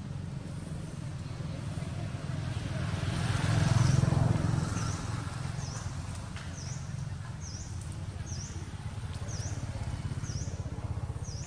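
A motor vehicle's engine rumbles steadily, swelling as it passes about four seconds in and then easing off. From about five seconds in, a bird repeats a short high chirp a little more than once a second.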